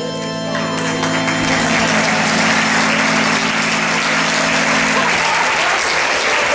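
Audience applauding, starting about half a second in, over a low held musical chord that fades out about five seconds in.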